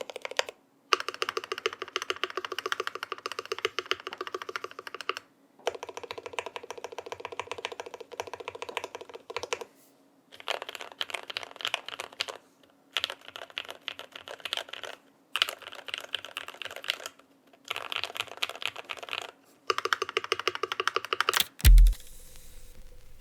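Keychron Q2 mechanical keyboard, PE-foam modded with PBT keycaps, being typed on in fast, dense runs of key clicks lasting a few seconds each, with short pauses between. First the stabilized long keys are slapped repeatedly, then random keys are mashed. Near the end there is one loud, deep thump, then faint hiss.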